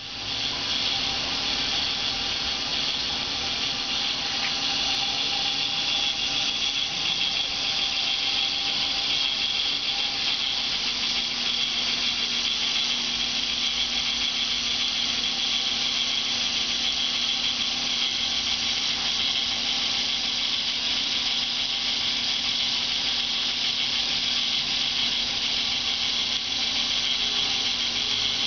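Motor and plastic gear train of a K'nex Double Ferris Wheel model running steadily as the wheel and arms spin, an even mechanical sound with a constant pitch.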